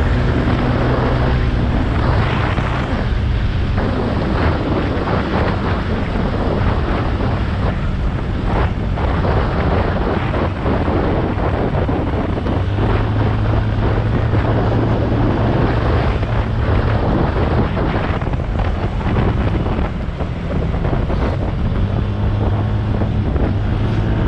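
Wind rushing over the microphone of a motorcycle riding at speed, with the engine's low drone underneath.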